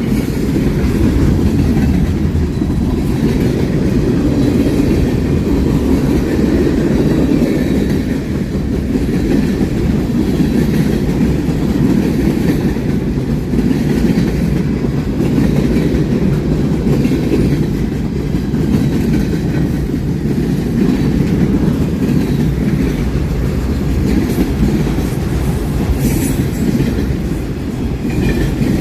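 A train rolling steadily past close by: a continuous low rumble of railcars with the clickety-clack of wheels over rail joints.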